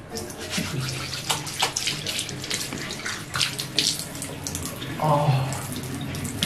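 Water from a tap splashing into a sink as hands scoop it onto a face, in many irregular splashes. A brief voiced sound comes about five seconds in.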